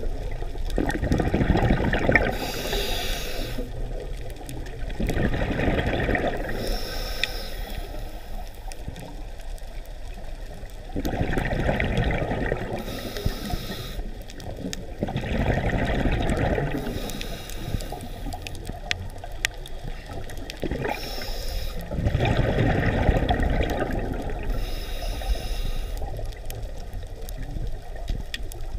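Scuba diver breathing through a regulator, heard underwater: a short hiss on each inhalation, then a gurgling surge of exhaled bubbles, about five breaths in a slow, even rhythm.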